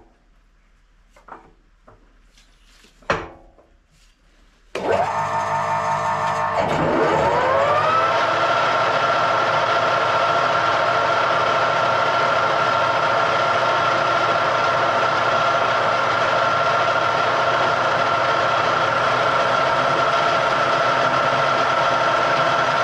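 A few clicks, then a workshop machine tool's motor starts about five seconds in. Its pitch climbs for a second or two as the speed is turned up, then it runs steadily with a high whine.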